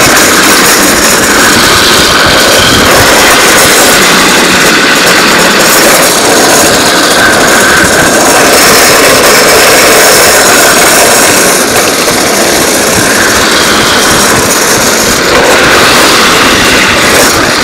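Loud steady rushing noise of a drift trike speeding downhill on a tarmac road: its wheels rolling and sliding on the asphalt, mixed with wind.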